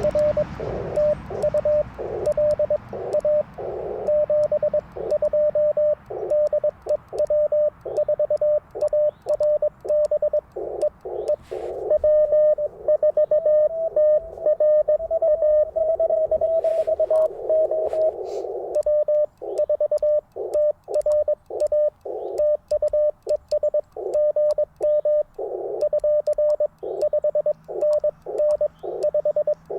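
Morse code (CW) from an Icom IC-705 ham radio: a single steady tone keyed rapidly on and off in dits and dahs, with receiver hiss around the tone and faint clicks throughout.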